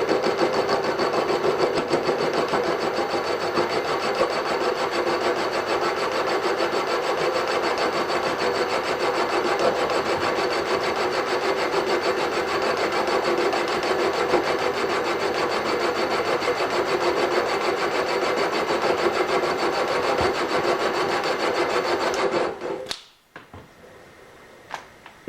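A metalworking machine tool running steadily with a faint high whine, stopping suddenly about 22 seconds in, followed by a few light metallic clinks.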